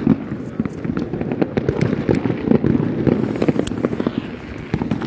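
Fireworks crackling and popping in quick, irregular succession.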